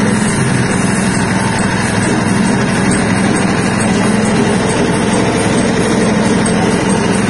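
Soybean cracking and hull-separating machine running steadily, its motor holding an even pitch throughout.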